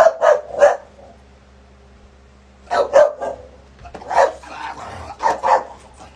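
Large dog barking protectively in short sharp barks, in clusters of two or three repeated several times with brief pauses between.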